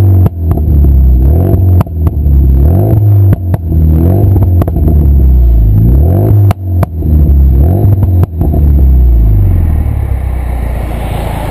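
Renault Megane RS250's 2.0-litre turbocharged four-cylinder revved repeatedly through a straight 3-inch Milltek centre section and small Powerflow rear box, with sharp pops and bangs from the exhaust as the revs fall. It drops back to steadier, quieter running near the end.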